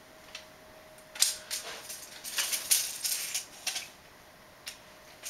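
Steel tape measure clicking and rattling against ceramic floor tile as its blade is pulled out and laid across the tiles: an irregular string of sharp clicks, the loudest about a second in and around three seconds in.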